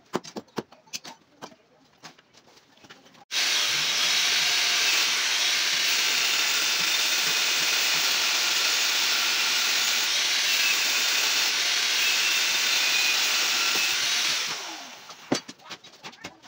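A power tool starts abruptly a few seconds in and runs with a loud, steady hissing noise for about eleven seconds. It then winds down and fades near the end.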